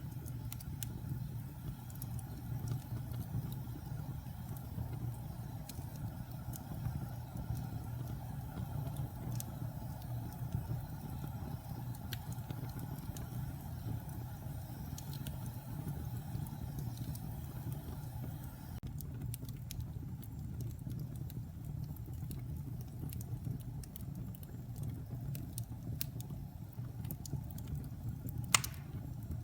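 Wood fire burning in a fireplace: a steady low rumble with scattered sharp crackles, and one louder pop near the end.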